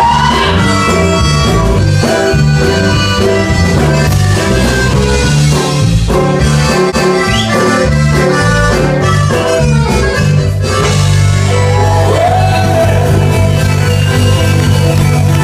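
Tejano band music, an accordion playing the melody over a steady bass line and a regular beat.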